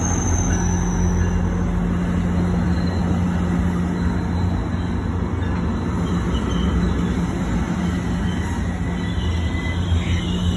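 MARC commuter train's bilevel passenger coaches rolling past, a steady loud rumble of wheels on rail with a low hum underneath and a few faint, brief high squeals from the wheels in the second half.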